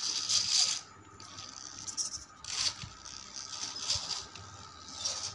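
Homemade RC crawler driving across a smooth floor: several short bursts of scraping, hissing noise from its electric motor, gearing and tyres as it moves and stops.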